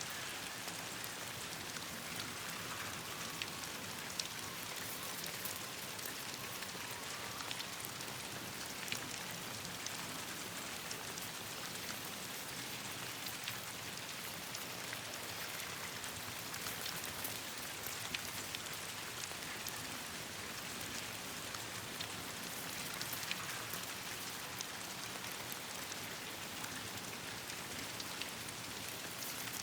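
Steady rain falling, an even hiss dotted throughout with many small sharp ticks of drops and pops.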